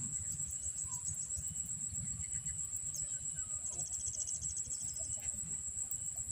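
Steady high insect drone with a few faint bird chirps, and a brief rapid trill about four seconds in, over a low rumble.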